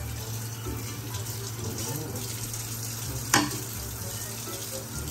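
Kitchen tap running into a stainless steel sink as dishes are rinsed under the stream, with one sharp clack of crockery a little past three seconds in.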